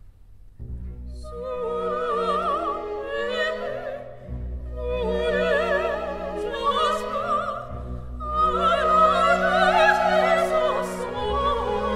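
Background music: an operatic voice singing with vibrato over an orchestra, in three long phrases.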